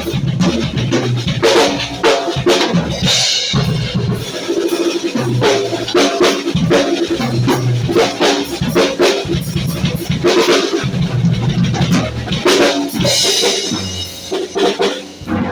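Background music with a drum-kit beat and a repeating bass line, and cymbal crashes twice.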